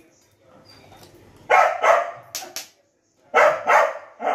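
A dog barking several times in short pairs of barks.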